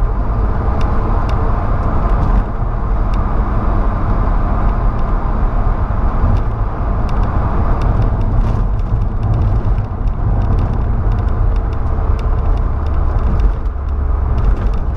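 Volkswagen Saveiro pickup driving on a paved highway, heard from inside the cab: a steady rumble of engine and tyre noise.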